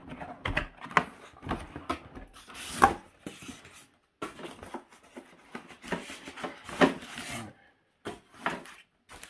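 Cardboard box flaps being pulled open and handled: irregular scraping and rubbing of cardboard, with louder crinkling bursts about three seconds in and again near seven seconds.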